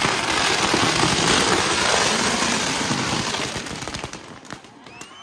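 Firecrackers packed inside a burning demon effigy going off in a rapid, dense crackle of bursts that merge into one continuous blast. The bursts fade out about four seconds in.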